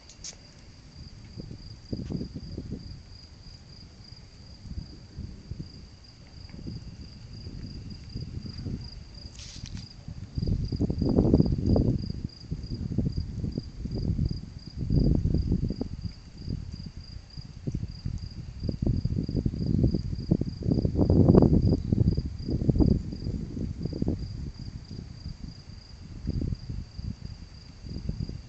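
Crickets chirp throughout in a steady, even pulse. Under them, low rolling thunder swells and fades in several waves, loudest in the middle.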